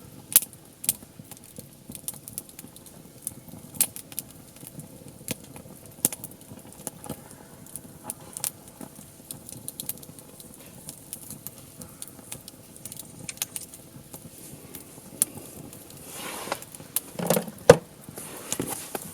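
Wood fire crackling, with sharp pops at irregular intervals. Near the end comes a louder cluster of knocks and rustling.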